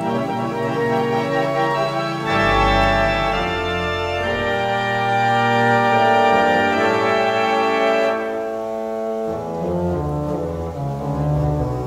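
Wurlitzer theatre pipe organ playing a TV theme tune in sustained chords. About two seconds in it swells to full organ with a deep pedal bass, and about eight seconds in the bright upper stops drop out, leaving a softer tone.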